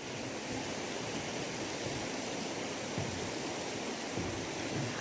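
Steady rushing wash of river water flowing below, with a faint low knock or two partway through.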